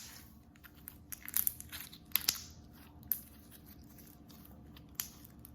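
Fishbowl-bead crackle slime being squeezed and worked by hand, giving irregular crunchy crackles, with the busiest clusters about one and two seconds in.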